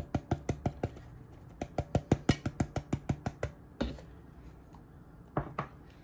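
Pepper grinder being worked: two quick runs of sharp clicks, then a single duller knock about four seconds in and a couple of last clicks near the end.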